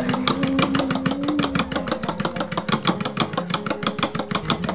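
A fork beating raw eggs in a stainless steel bowl, the fork clicking against the metal in a fast, even rhythm of about nine strokes a second.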